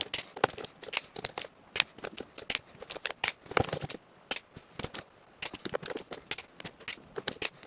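Ratchet wrench clicking in short, uneven strokes as bolts on an intake manifold are tightened, with small metal clicks and knocks.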